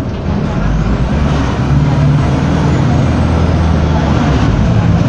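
Mercedes-Benz OF-1722M city bus's diesel engine running under load, heard from inside the passenger cabin with rattles and road noise. It grows louder from about a second in as the bus accelerates.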